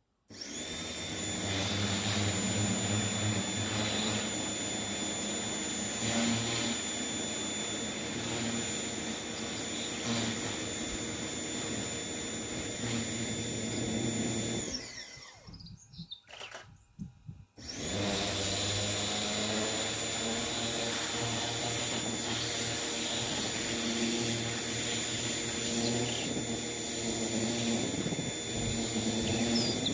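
Electric high-pressure washer running with a high motor whine and the hiss of its spray. It starts just after the opening, winds down and stops about halfway through as the trigger is released, then starts up again about three seconds later.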